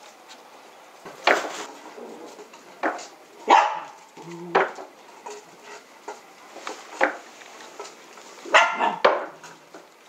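Dachshunds barking: about seven short, sharp barks at uneven intervals, two in quick succession near the end.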